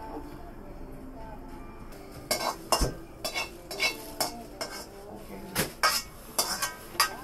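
Metal ladle scraping and clanking against a large iron wok as a ramen cook stir-fries. The sharp, ringing strikes begin about two seconds in and come irregularly, roughly two a second.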